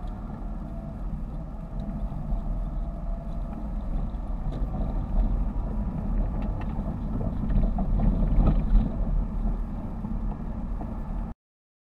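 Car driving, heard from inside the cabin: steady engine and tyre noise over a narrow road and then a dirt track, with scattered small clicks midway. The sound cuts off abruptly near the end.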